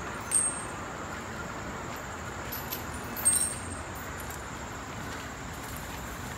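Iron leg chains on a walking Asian elephant clinking, with two sharp jangles about half a second in and again just past three seconds, over a steady background hiss.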